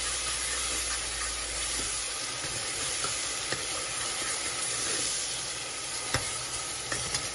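Onions and tomatoes sizzling in hot oil in an aluminium pressure cooker, stirred with a metal ladle that clicks and scrapes against the pot a few times.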